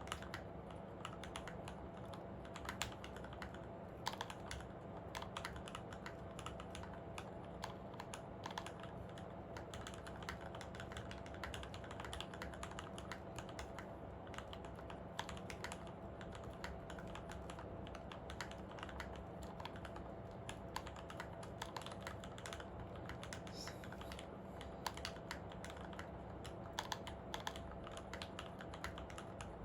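Continuous typing on a Monstargears Ninja87 XO V2 tenkeyless mechanical keyboard. It has a brass plate, lubed and filmed Retooled Black linear switches on 65 g springs, and ePBT keycaps. A steady stream of keystrokes runs throughout, with occasional louder strokes, over a faint steady hum.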